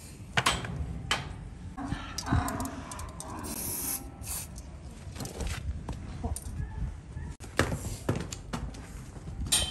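Aerosol spray can giving a short hiss, about half a second long, a little before the middle, as purple antiseptic spray goes onto a freshly trimmed donkey hoof. Around it are scattered knocks, and near the end the donkey's hooves step on the barn floor.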